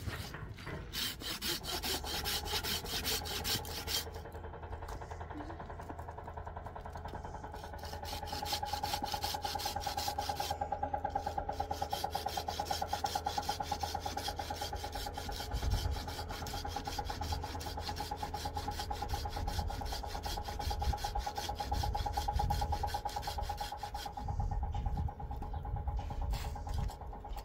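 Fast, even rhythmic rasping, many strokes a second, with a steady hum joining it from about eight seconds in until near the end.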